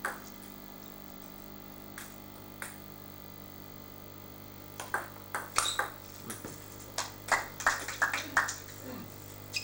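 Table tennis ball clicking off bats and table: a few single taps, then from about five seconds in a quick back-and-forth rally of sharp hits.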